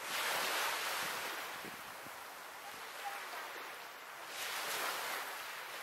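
Small waves washing onto a shingle beach: a steady hiss that swells as a wave comes in at the start and again about four and a half seconds in.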